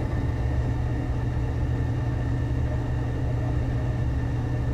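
Gas furnace running with its burners lit: a steady low rumble with a faint hum above it.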